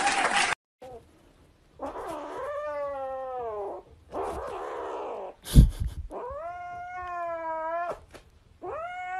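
Kitten yowling while it wrestles a plush toy: three long, drawn-out cries of about a second each, with a loud thump about halfway through.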